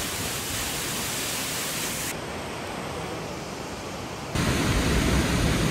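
Waterfall rushing: a steady hiss of falling water that changes abruptly twice, quieter about two seconds in, then louder and deeper past four seconds.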